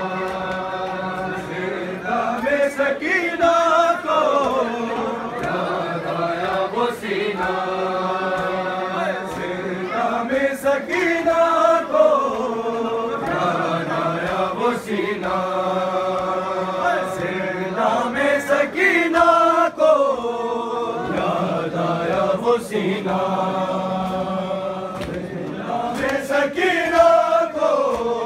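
A group of men chanting a noha, a Shia mourning lament, together in long held phrases that fall in pitch at the end of each line. Sharp slaps sound here and there through the chant.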